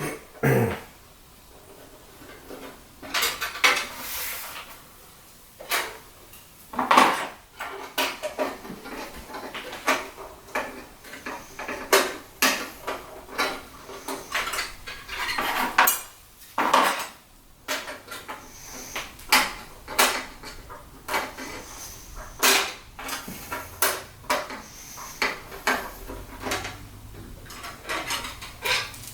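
Metal computer-case parts and hardware being handled during assembly: irregular sharp clicks, clinks and knocks, some close together, some spaced a second or more apart.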